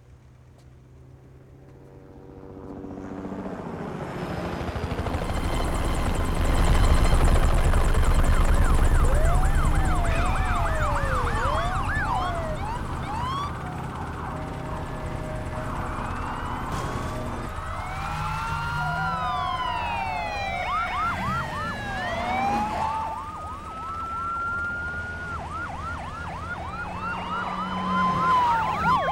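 A car engine's low rumble builds up and passes, loudest about seven seconds in. Then several police sirens wail and yelp over one another, with slow rising-and-falling sweeps mixed with fast ones, as the police cars close in and rush past.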